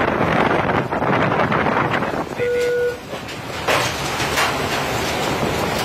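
Steady rushing noise of wind and the ship under way on a tuna longliner's deck while the longline is being set. Partway through there is one short, steady electronic beep lasting about half a second, followed soon after by a single knock.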